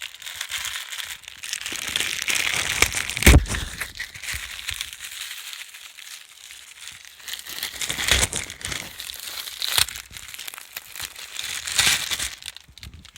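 A new cabin air filter being unwrapped from its packaging: irregular rustling and crinkling of the wrapper, with a few sharp louder knocks as it is handled.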